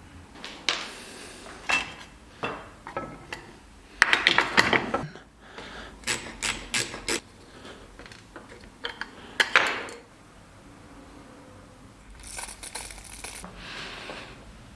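Small metal parts clinking, tapping and scraping as they are handled and set down on a hard surface: irregular sharp clicks, several in quick runs, with short stretches of scraping or rubbing.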